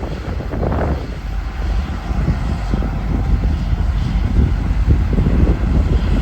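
Heavy farm machinery engine running steadily with a deep, uneven rumble, mixed with wind buffeting the microphone.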